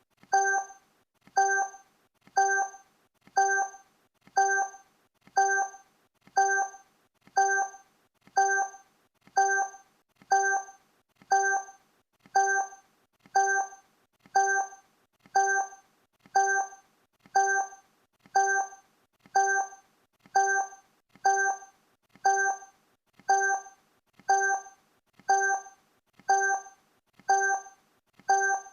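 Countdown timer sound effect: a short pitched tick-like tone with a clear ring, repeating evenly once every second, counting off the seconds.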